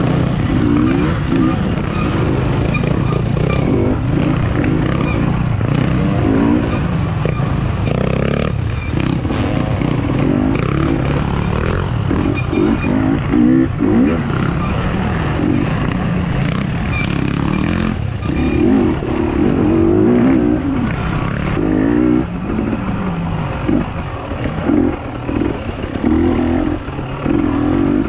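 Dirt bike engine revving up and down over and over, its pitch climbing and dropping in quick swells as the throttle is worked and gears change.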